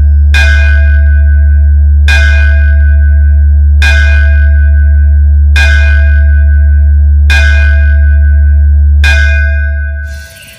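Electronic DJ sound-check track: a constant, very loud deep bass tone under a ringing bell-like chime struck every second and three quarters, six times. The bass fades out just before the end.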